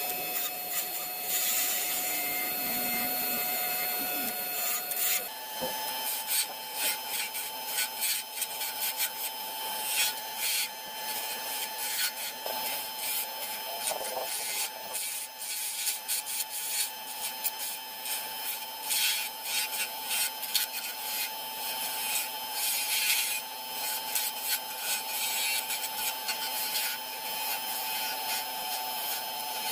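Wood lathe spinning a cherry-wood goblet blank while a hand-held turning tool cuts the stem: uneven scraping of the tool edge on the wood over a steady motor hum that steps up in pitch about five seconds in.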